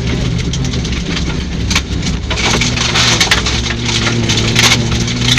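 Rally car engine running at a steady pitch while loose gravel crunches under the tyres and pelts the car with a dense rattle of stone strikes, heaviest from about two and a half seconds in.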